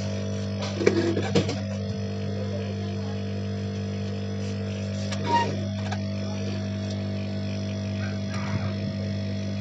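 Steady low hum with a few short knocks and rattles about a second in, around the middle and near the end.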